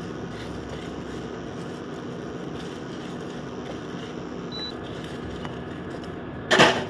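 Steady hum of an induction cooktop's cooling fan, with light scraping as a spatula stirs whole spices being dry-roasted in a nonstick pan. Near the end there is a brief loud clatter.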